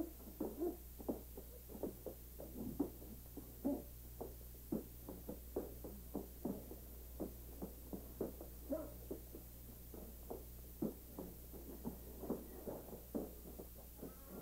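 Short grunts and huffs of effort, irregular, about two or three a second, as two men struggle and shuffle.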